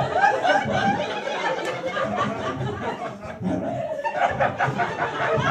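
Audience chuckling and laughing.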